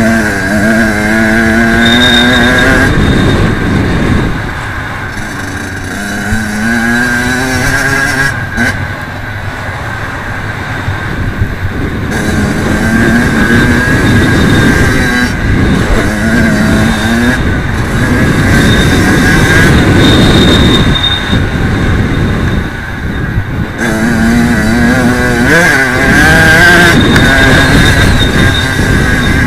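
Kawasaki KX85 two-stroke single-cylinder dirt bike engine being ridden hard. Its pitch climbs and drops again and again as the throttle is opened and shut and gears change, over a steady low rumble of wind and knobby tyres.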